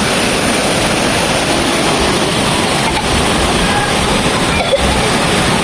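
Waterfall rushing in a loud, steady, unbroken roar of falling water.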